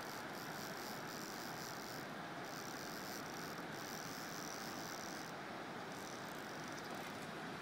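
Steady rush of a fast-flowing river running over rocks and rapids, with a thin high hiss above it that cuts in and out now and then.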